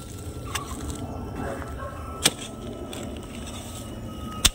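A long-handled digging hoe chopping into the soil of a Chinese potato bed to dig up the tubers: three sharp strikes, a light one about half a second in, then two loud ones a little past two seconds and at the very end.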